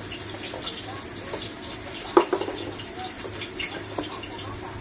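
Water sloshing and trickling in a turtle's aquarium, with one sharp splash or knock about two seconds in and a few faint clicks, over a low steady hum.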